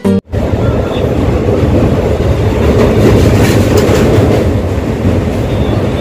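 Passenger train running across a steel truss railway bridge, heard from an open window of the coach: a steady, loud rumble.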